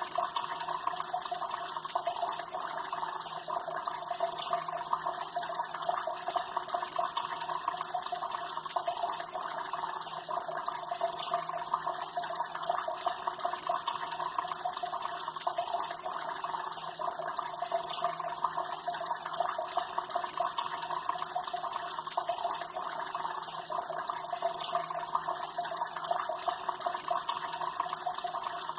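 Water from a small decorative waterfall, falling and splashing steadily without a break.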